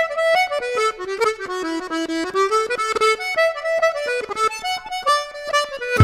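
Instrumental background music: a melody of held notes stepping up and down, with no bass or beat under it.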